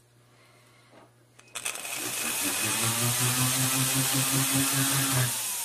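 Jeweler's flex-shaft rotary handpiece smoothing the inside of a ring shank to take out file marks. After a quiet start and a click, the motor runs steadily for about three and a half seconds, a low hum under a hiss from the abrasive on the metal, then winds down near the end.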